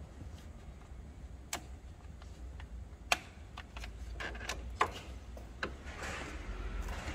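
Irregular clicks and light knocks of hand tools and engine parts being handled during work in a car's engine bay, the two sharpest about three and five seconds in, with a brief rustle near the end.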